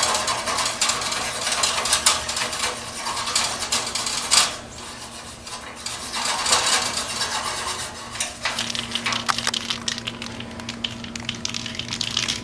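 Scraping dirt and grime off a metal part of the air conditioner: quick scratchy strokes with metallic clicks, easing off briefly about four seconds in before picking up again.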